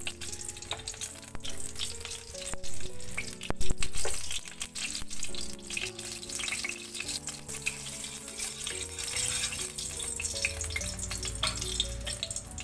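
Oil crackling and sizzling in a kadai as more cooking oil is poured in and heats, under background music with a slow stepped melody. A sharp knock sounds about three and a half seconds in.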